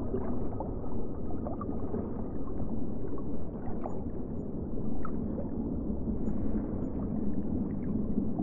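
Muffled underwater ambience: a steady dull wash of water noise with a few short, faint rising blips scattered through it.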